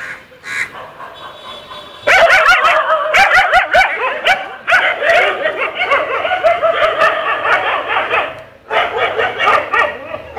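Several stray dogs barking and yipping over one another in a continuous, loud burst that starts suddenly about two seconds in, with a brief break near the end.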